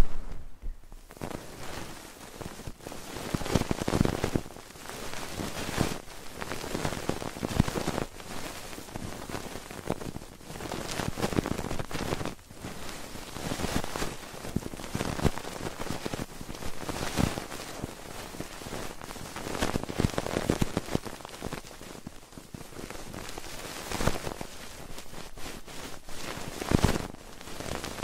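Fingers tapping and rubbing on the ears of a binaural ASMR microphone, making a dense crackling rustle that swells every second or two.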